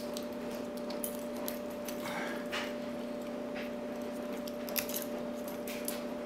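Faint metallic clicks and scraping of a thin shim being worked against a padlock's shackle detainer, over a steady electrical hum.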